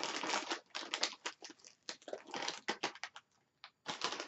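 Potato chip bag crinkling and rustling in quick irregular bursts as hands reach in for chips.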